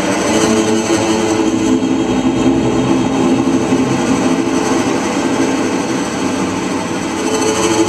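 Bowed cello run live through computer effect layers in Ableton Live, giving a dense, steady, machine-like texture of several held pitches stacked on top of one another.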